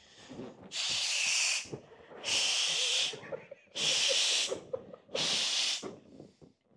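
A person blowing hard into a balloon four times, each a long hissing puff of breath with short pauses between, and a few faint short squeaks between the later blows.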